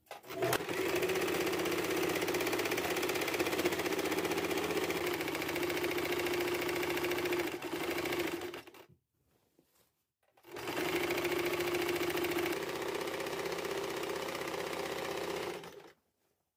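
Sewing machine stitching in two runs: about eight seconds, a short stop, then about five more seconds, its speed shifting slightly during each run.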